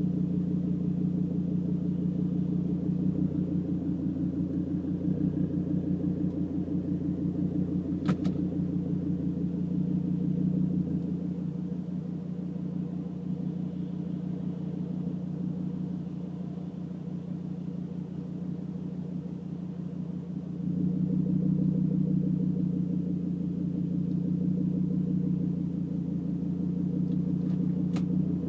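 Volvo S60R's turbocharged five-cylinder engine idling with a loud, throaty exhaust note through a Dynomax Bullet resonator and no muffler, heard from inside the cabin. The hum drops in level for about ten seconds midway, then comes back up, and there are two short sharp clicks, one at about eight seconds and one near the end.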